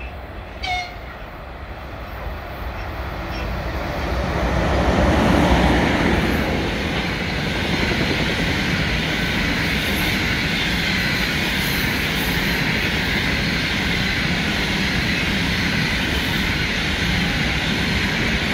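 EP20 electric locomotive and its passenger coaches passing. The sound builds to its loudest about five seconds in as the locomotive goes by, then settles into a steady rumble and rolling wheel-on-rail noise from the coaches.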